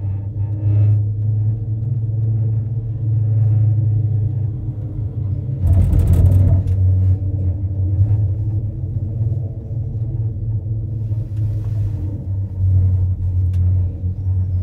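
Gondola cable car cabin running along its cable, a steady low rumble with a brief louder burst of rattling about six seconds in.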